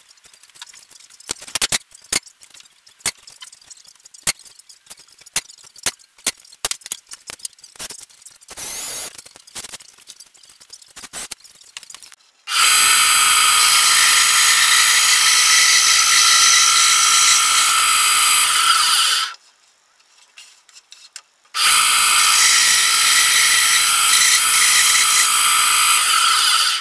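A benchtop band saw running and cutting small wooden blocks, in two loud steady spells of several seconds with a short gap between them. Before the saw starts there is a string of sharp clicks and knocks.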